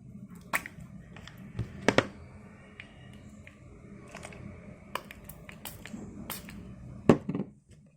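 Scattered sharp taps and clicks from handling a phone-cleaning kit's small plastic bottles and a phone, about six in all, the loudest about seven seconds in.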